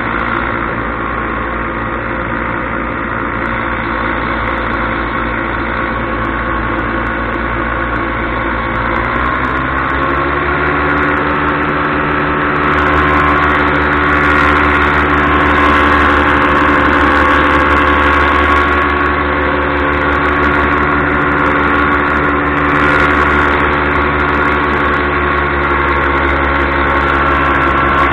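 Paramotor engine and propeller running steadily in flight. About nine seconds in the engine speeds up, its pitch rising and then holding higher and a little louder.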